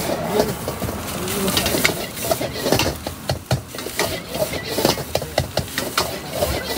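Many short knocks and clicks over a bed of indistinct background voices.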